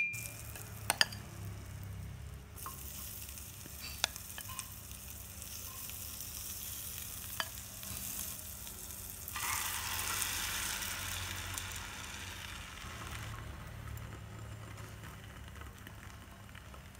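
Egg-filled bread sizzling in a hot non-stick frying pan, the sizzle growing louder about nine seconds in and dying down a few seconds later. A few light clinks and knocks of a utensil come near the start and twice more in the first half.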